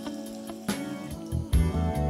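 Background music: held notes over a rhythmic bass line.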